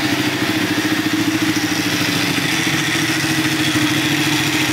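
Ducati Panigale 899's Superquadro V-twin engine idling steadily.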